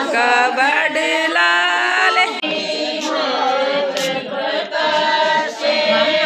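A group of women singing a song together in chorus, unaccompanied.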